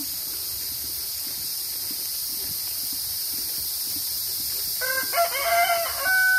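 Rooster crowing, starting near the end: a long cock-a-doodle-doo ending on a held high note, over a steady high hiss.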